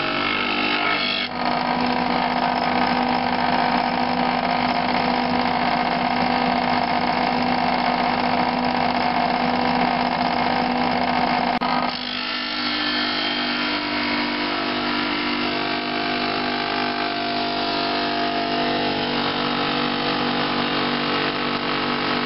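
Homemade drum sander running, its motor giving a steady hum while an apple-wood board is fed under the spinning abrasive drum. The gritty sanding noise is loudest for the first ten seconds or so and eases about twelve seconds in as the drum bites less, while the motor runs on.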